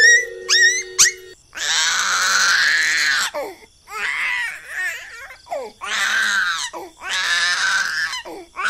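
An infant crying from hunger in a series of long wails, each a second or two, with short pauses between them. About the first second holds rising whistle-like notes over a held tone, which stop just before the crying starts.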